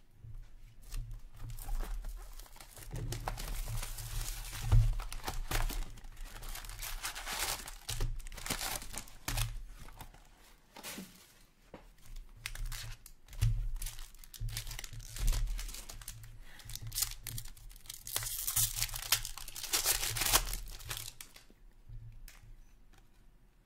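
O-Pee-Chee Platinum hockey card box and its foil packs being torn open by hand: irregular tearing and crinkling of wrapper and foil, in two long spells with a short lull between.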